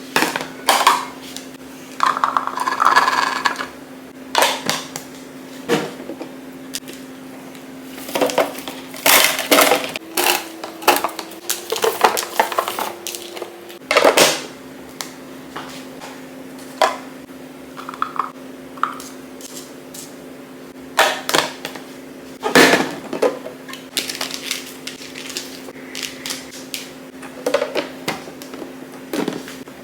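Containers and packaging being handled while a fridge is restocked: many scattered knocks, clinks and rustles over a steady low hum.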